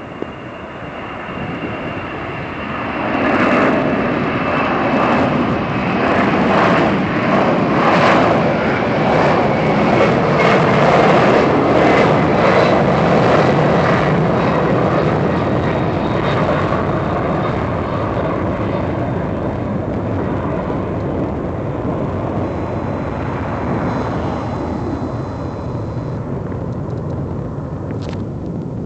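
Boeing 747-400's four jet engines at takeoff power as the airliner climbs out past overhead: a loud roar that swells about three seconds in, peaks as the jet passes, then slowly fades as it flies away. A high whine falls in pitch over the first half.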